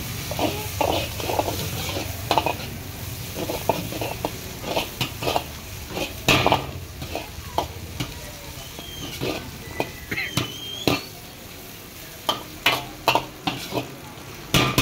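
Metal ladle clanking and scraping against a large iron wok in irregular strokes as vegetables and egg are stir-fried, over a steady sizzle. The strikes come thick and loud near the end.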